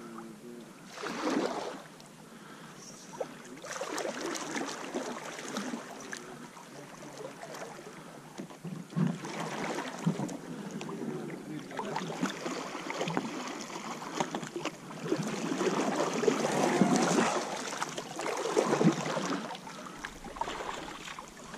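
Canoe paddles dipping and pulling through calm water, a swishing splash every two or three seconds in an uneven rhythm.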